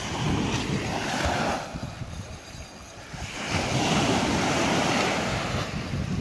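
Surf washing in on the beach, two waves swelling and breaking one after the other, with wind buffeting the microphone.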